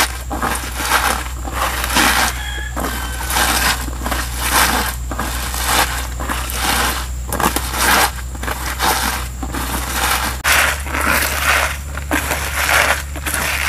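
Hands rubbing and squeezing chopped genjer (yellow velvetleaf) stems against a woven bamboo basket. The stems give a crunching, scraping rustle in repeated strokes, about two a second.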